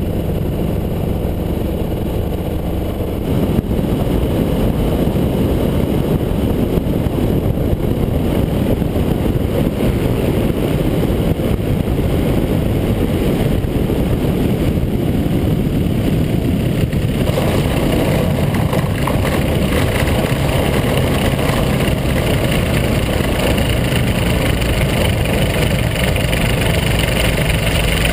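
Rotax 503 two-cylinder two-stroke engine of a Quicksilver GT400 ultralight running at low power with wind rushing past on the approach and landing. About two-thirds of the way through, a steady higher-pitched hiss from the wheels rolling on the gravel runway joins the engine's idle.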